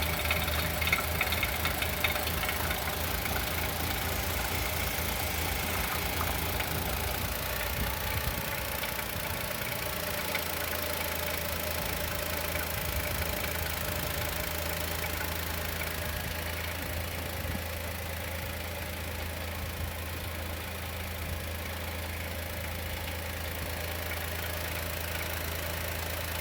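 Chevrolet Onix 2020 naturally aspirated engine idling cold with a steady, rhythmic knocking from the top of the engine, louder with the oil filler cap off. The owner suspects a hydraulic valve lifter or piston pin and expects it to stop once the engine warms.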